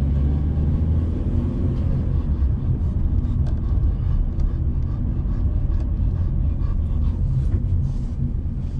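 A car driving along a street, heard from inside the cabin: a steady low engine and road rumble.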